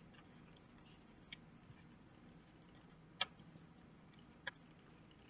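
Near silence with faint room hum, broken by three short faint clicks, the loudest a little past the middle.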